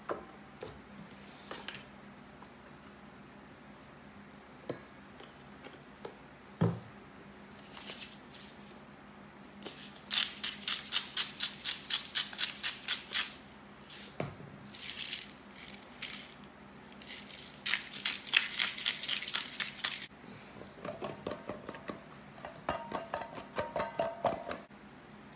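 Salt and pepper grinders cranked in quick rattling bursts, about six strokes a second, over oiled poblano pepper halves in a stainless steel bowl. Near the end the peppers are tossed in the bowl and the metal rings faintly.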